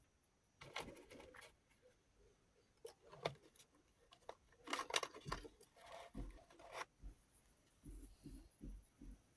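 Small hard parts of a rotary tool accessory set and their plastic case clicking and rattling as they are handled, in several short clusters, with a few soft low knocks near the end.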